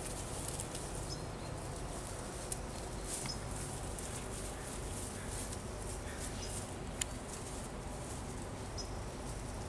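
Outdoor ambience: a steady low background rumble, with a small bird chirping once every two to three seconds and one sharp click about seven seconds in.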